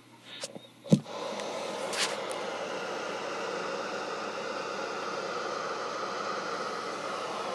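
A click about a second in, then steady static hiss from a CB radio.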